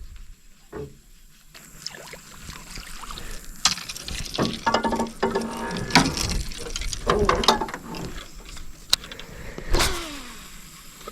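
Fishing reel in use: whirring and clicking in bursts, with sharp knocks of gear being handled. A falling whir comes near the end.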